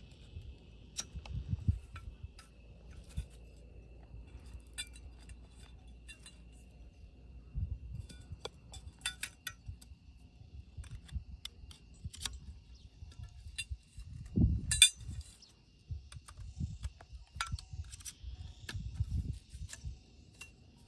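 Scattered light clicks and clinks of small hard objects being handled, over wind gusting on the microphone, with one louder knock about fourteen seconds in. A faint steady high-pitched tone runs underneath.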